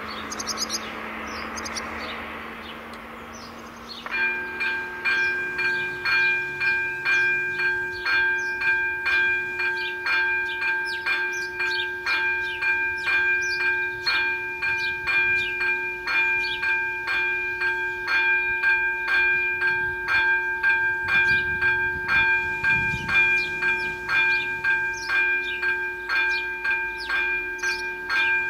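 Electronic warning bell of a Czech AŽD 97 level crossing. It starts about four seconds in and keeps sounding steady, evenly spaced rings as the crossing is activated for an approaching train. A rushing noise comes before it.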